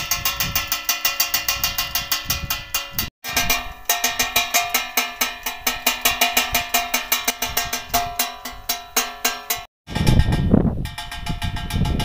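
Homemade wind-driven bird scarer: its propeller spins the shaft so that a striker beats on a perforated metal can, a fast, even run of metallic clanks with ringing tones, about six a second. The sound drops out twice for an instant, and after about ten seconds wind buffets the microphone and the clanking is fainter.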